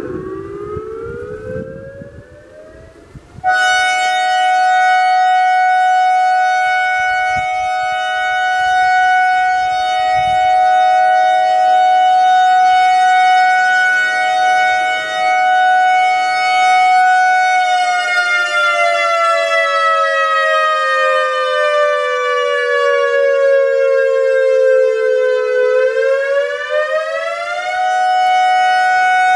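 ACA Alertronic AR-1600 electronic outdoor warning siren sounding a two-note tone. The tone glides upward, becomes much louder a few seconds in, and holds a long steady pitch. It then slowly falls for several seconds and rises back to hold steady again near the end.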